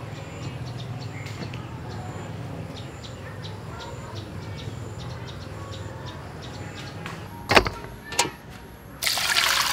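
A steady low hum with faint ticking, then two sharp knocks as the stainless steel bowl is handled, and about a second later water starts running into the bowl.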